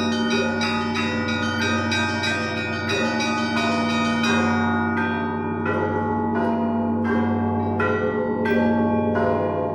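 Russian Orthodox church bells rung by one bell-ringer. For the first half a fast run of small chiming bells sounds over the steady hum of larger bells. About halfway through it thins to single strikes roughly twice a second, while the big bells keep ringing underneath.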